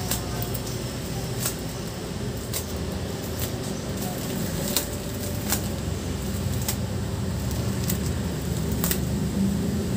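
Rubber bands being pulled off the necks of plastic mushroom fruiting bags: sharp snaps and plastic crinkling about once a second, over a steady low hum.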